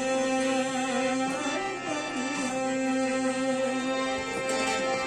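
Instrumental introduction to a Rajasthani folk devotional song: a steady held drone note with a wavering melody line over it.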